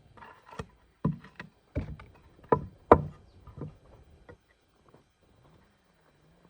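A series of sharp, irregular knocks and clatters, about seven in the first four and a half seconds, then it goes quiet.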